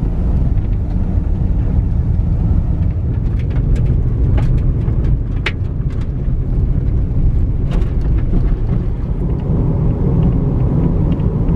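Driving noise heard from inside an SUV's cabin: a steady low rumble of tyres and engine, with a few sharp ticks.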